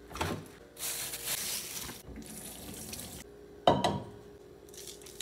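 A fridge door pulled open, then a tap running water in a steady hiss for about two seconds. About three and a half seconds in comes a sharp metallic clank, the loudest sound, as a stainless steel pot of water is set down on the stone counter.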